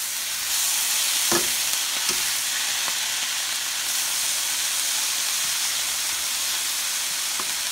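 Chopped collard greens, onions and freshly added diced tomatoes sizzling in olive oil in a skillet on high heat, turned over with metal tongs. There are a few light clicks of the tongs against the pan.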